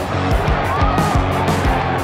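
Background music with a steady beat: a driving drum pattern over sustained bass notes and a gliding melody.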